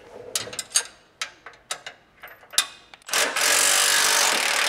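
Several sharp metallic clinks of the socket and wrench being fitted on the bolt. About three seconds in, a Milwaukee M12 cordless impact wrench starts hammering steadily, backing out a 14 mm transmission cross-member bolt.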